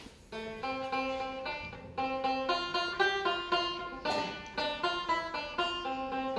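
Banjo playing a quick tune of plucked notes, with one loud noisy hit about four seconds in.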